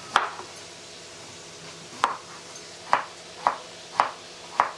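Cleaver-style knife slicing through a raw beetroot and knocking on a wooden chopping board. One sharp knock comes just after the start, then five more about every half second from two seconds in.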